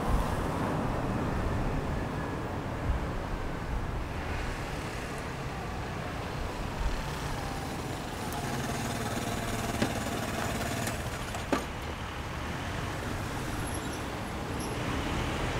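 Street traffic noise, with a motor scooter pulling in and slowing to a stop. Two sharp clicks come a little over halfway through.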